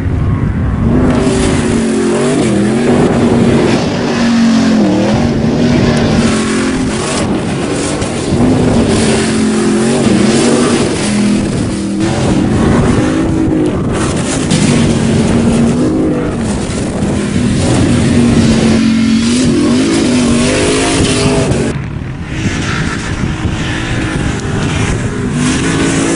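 First-generation Ford SVT Raptor's V8 engine revving hard on sand, its pitch rising and falling again and again as the throttle is worked, over a constant rushing noise. A brief let-up near the end before it pulls again.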